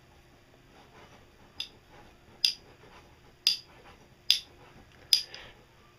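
Five sharp metallic clicks about a second apart, the first one fainter, each with a brief ring, from a thin steel rod knocking against the metal of a milling machine as it is handled.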